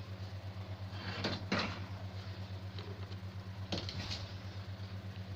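Ladle knocking against the pot and cups as rice pudding is scooped out: two quick knocks about a second in and two more near four seconds, over a steady low hum.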